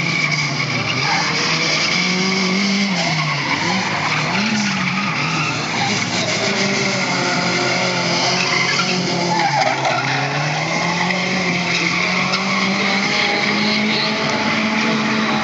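Drift cars, a Ford Mustang and a Nissan 240SX, sliding sideways with their tyres squealing. The engine note rises and falls with the throttle several times, dips about two-thirds of the way through, then climbs back and holds.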